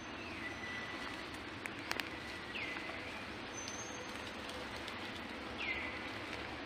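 A bird calling three times over steady outdoor background noise, each call a short whistle sweeping down and levelling off. A few sharp clicks about two seconds in.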